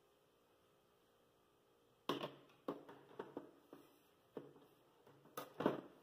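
A string of sharp knocks and clatters, starting about two seconds in, as a mixing bowl is set onto a stand mixer's base and fitted under its whisk head. The mixer is not yet running.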